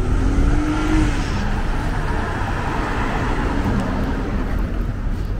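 City street traffic: a car engine pulls away with a short rising tone in the first second, then tyre and road noise swells as traffic passes, over a steady low rumble.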